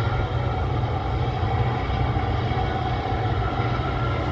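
Boat diesel engine running steadily, a deep low drone with no break.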